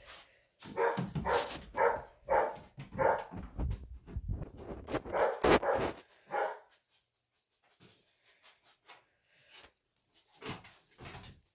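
Small dog barking in a quick run of about a dozen short barks, which stop about six seconds in; faint small scuffling sounds follow.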